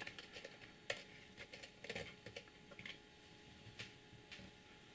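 Faint, scattered light clicks and taps of fingers handling a prebuilt coil's thin wire leads while threading them into the posts of a rebuildable atomizer deck.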